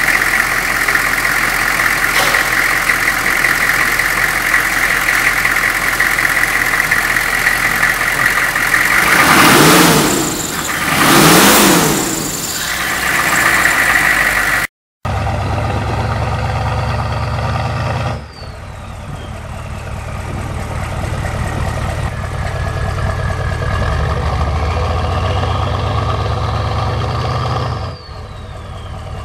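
GM 6.5-litre turbo-diesel V8 idling with a steady high whine over it, revved up twice in quick succession about ten seconds in. After a sudden break about halfway, a steadier, deeper drone takes over.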